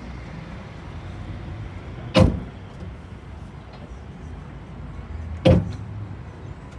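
City bus running, heard from inside: a steady low rumble, broken by two loud sharp clunks, one about two seconds in and another about five and a half seconds in.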